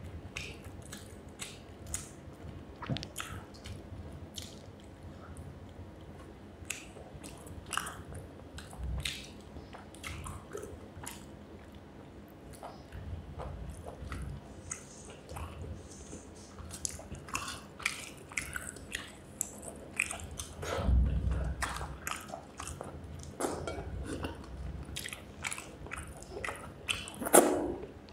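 Close-miked chewing and eating of rice with fish curry and brinjal fry: irregular wet smacks and small clicks, with a louder stretch a little past the middle and a sharp click near the end.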